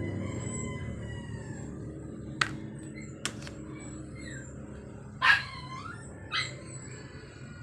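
A dog barks twice, briefly, about five and six seconds in, after two sharp clicks, over a low steady hum.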